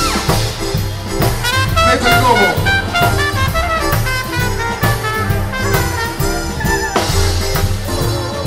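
Live band playing an up-tempo swing number: horn melody lines over a steady drum-kit beat, with a quick rising run about two seconds in.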